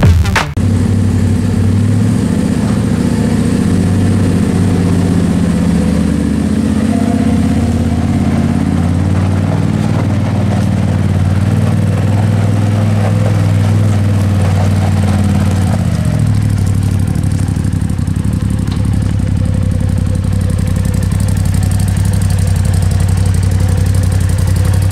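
Polaris RZR side-by-side's engine running at low revs, its note wavering under light throttle for the first part, then settling into a steadier, slightly lower idle about two-thirds of the way through.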